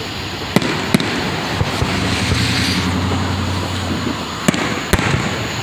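Fireworks display: four sharp bangs of bursting shells, two near the start and two near the end, over a continuous crackling wash and low rumble that swells in the middle.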